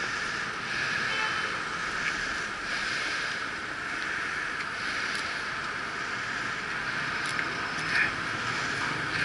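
Steady city street traffic noise picked up by a helmet camera, with a few faint clicks and a small knock about eight seconds in.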